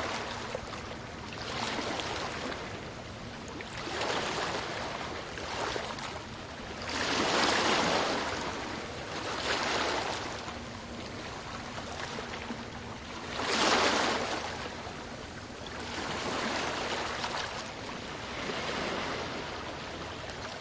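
Sea waves surging and receding in repeated swells every few seconds, with two louder surges about seven and fourteen seconds in.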